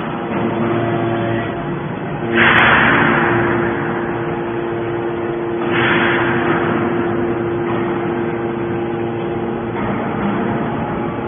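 Hydraulic metal baler running, with a steady pump hum and two loud rushing surges about two and a half and six seconds in, each fading away over a second or two.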